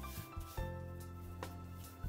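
Background music: steady low bass notes changing every half second or so, with higher notes struck over them.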